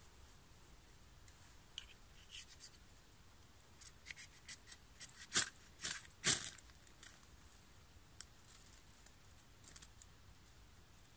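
Ferro rod struck with a scraper over tinder in a small camp stove: a series of short, sharp metallic scrapes, the two loudest about halfway through, under a second apart.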